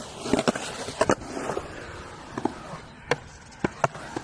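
Skateboard on a concrete skatepark: polyurethane wheels rolling over the concrete, with about eight sharp, irregular clacks and knocks of the board hitting the ground and the coping.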